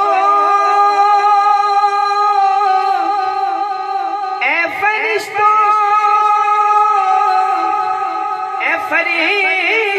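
A solo male voice singing a naat, unaccompanied, drawing out long wavering, ornamented notes in two long phrases, with a new phrase beginning near the end.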